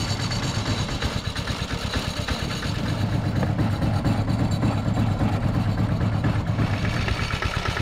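An engine idling steadily with a low, even running sound.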